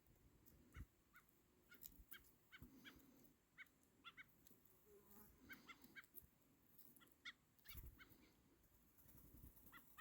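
Wild birds giving many short, faint calls, often in quick pairs, with a few soft low bumps between them.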